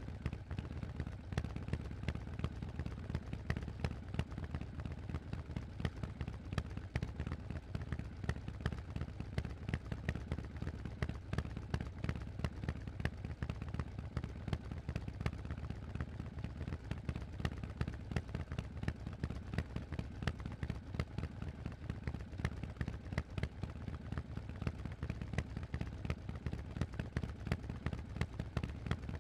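Harley-Davidson Forty-Eight's air-cooled 1200 cc V-twin running steadily through Vance & Hines aftermarket exhausts: a deep, even stream of exhaust pulses with no revving.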